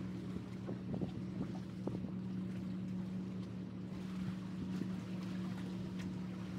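A boat engine droning with a steady low hum across the water, with light wind noise on the microphone.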